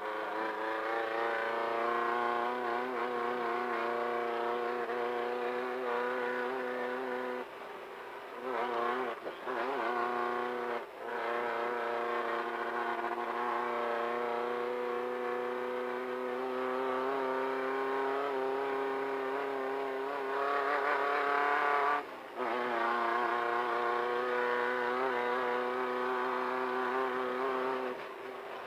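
Off-road race car's engine running flat out at steady high revs over rough ground, its pitch sagging and breaking briefly about a third of the way in and dropping again around three quarters through, as the driver lifts off or changes gear.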